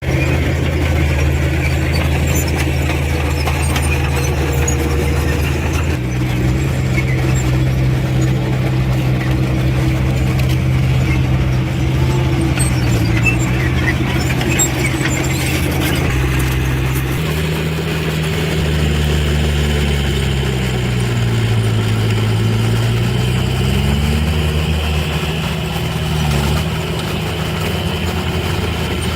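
Heavy diesel engine of earthmoving machinery running under load. Its note sags and then climbs back about two-thirds of the way through.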